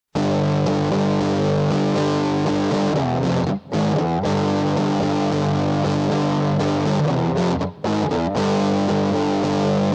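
Background music: a distorted electric guitar playing sustained chords, with short breaks about three and a half seconds in and again near eight seconds.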